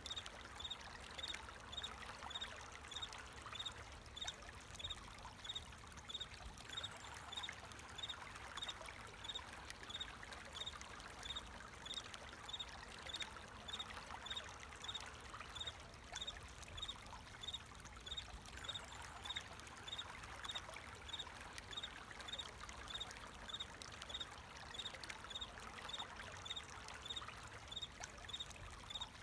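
Water flowing steadily, with a cricket chirping over it in an even, unbroken rhythm of about two high chirps a second.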